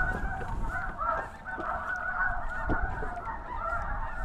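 Snow geese calling: a dense chorus of many short, overlapping honks that never lets up.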